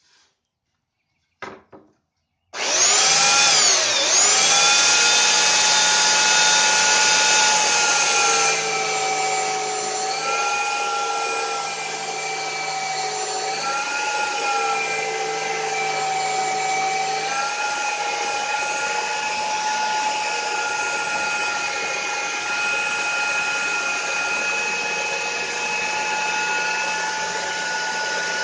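Belt sander switched on about two and a half seconds in, quickly spinning up to a steady whine. Its pitch sags briefly a few times as the throat plate is pressed against the sanding belt and loads the motor.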